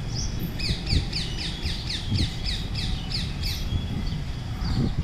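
A bird calling a quick run of short, high, downward-sweeping notes, about five a second, for about three seconds, with other bird calls around it over a low rumble.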